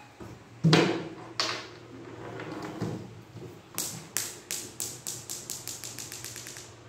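Hard knocks and taps. A loud knock about a second in and another just after, then a run of sharp taps that come faster and faster, from about three to about six a second, before stopping near the end.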